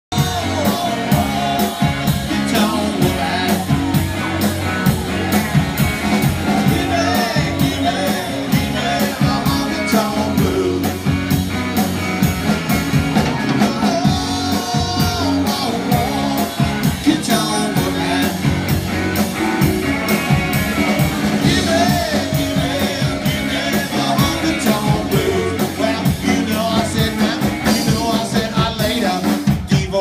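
Live rock trio playing a cover song: a singer over a drum kit and guitar, with a steady driving beat.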